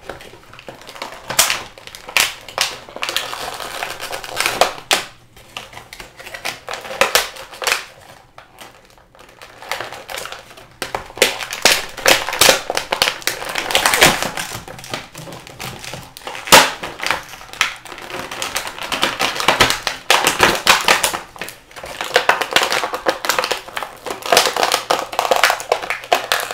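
Clear plastic packaging crinkling and crackling in the hands, in irregular bursts of clicks and rustles, as an action figure is worked out of its plastic tray and bag.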